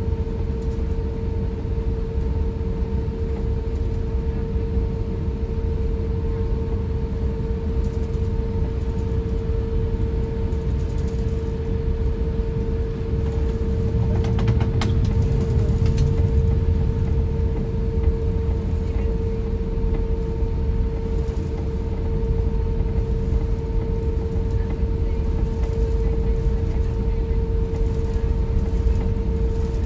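Cabin noise of an Airbus A350-1000 airliner on the ground: a steady low rumble with a steady hum. About halfway through there is a brief rattle, and the rumble swells for a couple of seconds.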